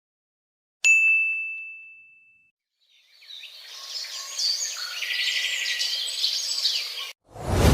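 A single bright ding, struck once and ringing out for about a second and a half. After a short silence, birds chirp for about four seconds, then stop abruptly.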